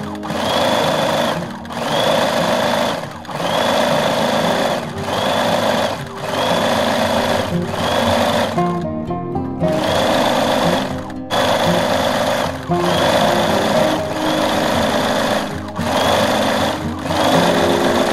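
Domestic electric sewing machine stitching a hem in short runs of about a second and a half, stopping briefly between each, with a longer pause about nine seconds in; a high motor whine rises at the start of each run. Background music plays underneath.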